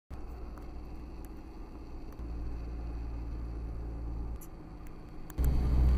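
Low, steady road and engine rumble inside the cab of a moving Toyota Hilux diesel pickup. The rumble steps up and down a few times and gets clearly louder near the end.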